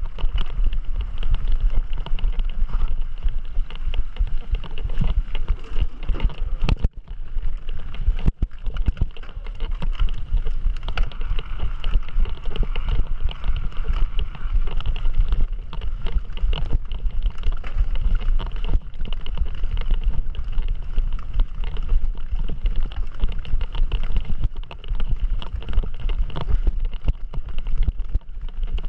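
Heavy wind buffeting on the microphone of a camera riding along on a mountain bike, over the steady low rumble and rattle of the bike rolling over the trail.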